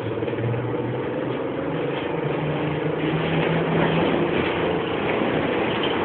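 Cabin sound of an Ikarus-GVM 280.94 trolleybus moving off: the electric traction drive hums with a few steady tones over road noise, growing louder right at the start.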